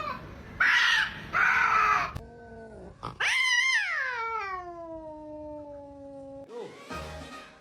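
A pet dog or cat howling: two short, rough cries, then one long howl that starts high and slides steadily down in pitch for about three seconds.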